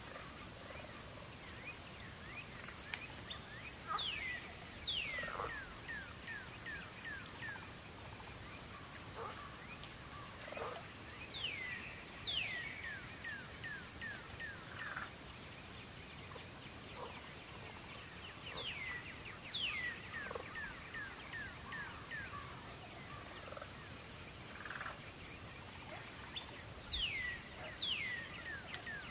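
Crickets chirping in a steady, high, continuous trill. Roughly every seven or eight seconds a bird's song of a few falling whistled notes cuts in over it.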